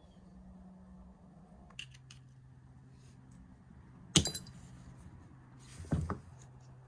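Small metal clinks of a pocketknife and a small hand tool being handled on a work mat: a sharp clink about four seconds in and a shorter one near six seconds, over a faint steady hum.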